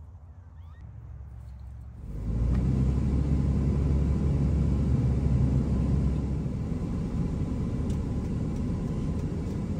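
Steady low rumble of road and engine noise heard inside the cab of a Dodge Ram 2500 pickup while driving, starting abruptly about two seconds in after a quieter moment.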